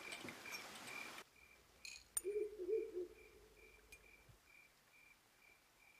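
A cricket chirping at an even pace, about two short high chirps a second. A hiss fills the first second, and about two seconds in there is a sharp click followed by a brief low wavering sound.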